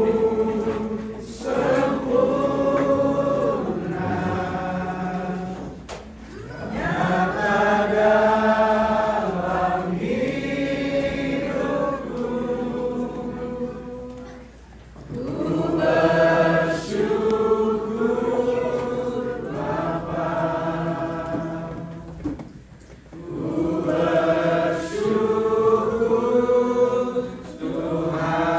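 A group of people singing a slow worship song together, in long held phrases of several seconds with short pauses for breath between them.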